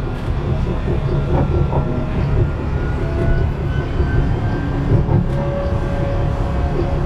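Ride noise heard from inside an Alstom RegioCitadis tram under way: a steady low rumble of wheels on rail. Thin electric whining tones from the drive rise slowly in pitch in the middle.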